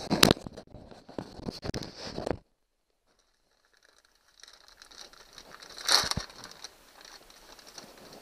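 Plastic packaging crinkling and tearing as a bicycle shift cable is drawn out of its bag, with a few sharp clicks from the wire and handling. The sound cuts out completely for about two seconds partway through.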